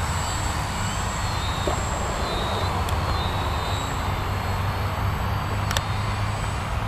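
VisionAire electric RC aerobatic plane's 4S-powered brushless motor and propeller whining in flight, the faint high pitch sliding up and down several times as the plane manoeuvres, over a steady low rumble.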